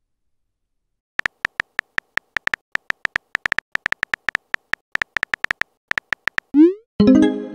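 Synthetic keyboard-tap clicks from a texting-story app, a rapid irregular run as a message is typed, then a quick rising swoosh and a short pitched tone as the message is sent.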